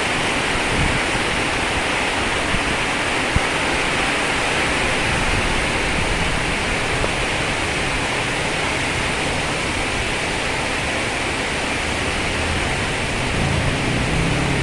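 Heavy tropical downpour: a steady, dense hiss of rain, with a few sharp ticks of drops striking something in the first seconds and a low rumble coming in near the end.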